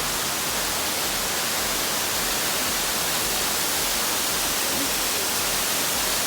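Waterfall pouring: a steady, unbroken rush of falling water, heavy in the high hiss.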